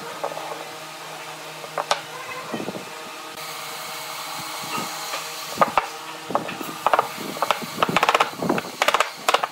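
Wooden blocks handled and set down on a wooden tabletop: a few sharp knocks in the first seconds, then a dense run of quick taps and clicks in the second half. A steady hum runs underneath, with a soft hiss around the middle.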